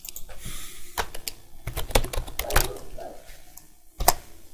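Computer keyboard being typed on: a handful of irregular clicking keystrokes.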